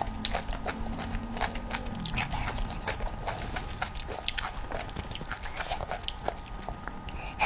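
Close-miked chewing of chicken feet: an irregular run of wet smacks and crunchy clicks, several a second.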